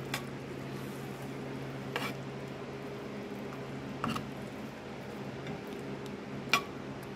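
Creamy Cajun sauce simmering quietly in a cast-iron skillet over a steady low hum, as a spatula is worked through it. The spatula clicks against the pan four times, a couple of seconds apart.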